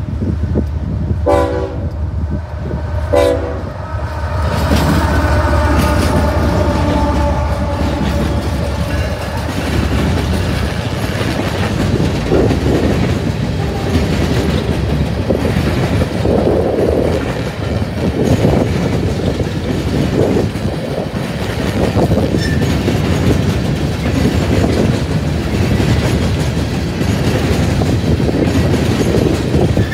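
Freight train horn sounding two short blasts about two seconds apart, then a longer blast that fades as the BNSF diesel locomotives go by. After that, empty coal cars roll past close by with clickety-clack of steel wheels over rail joints and a loose rattling rumble.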